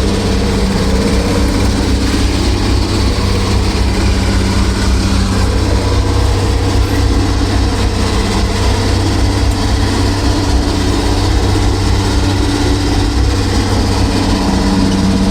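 A machine running steadily and loudly with a deep, even hum that does not change.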